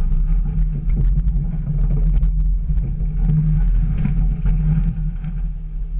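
Jeep Wrangler TJ engine running steadily at low revs as the Jeep crawls along a rocky sand trail, with scattered light clicks and knocks over the low drone.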